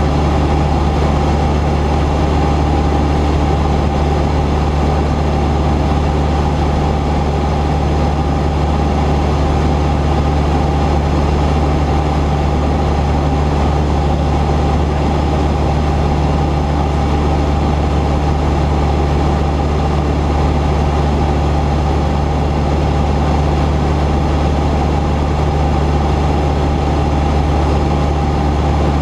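Cessna 172's piston engine and propeller running steadily: a constant, even drone with no change in pitch.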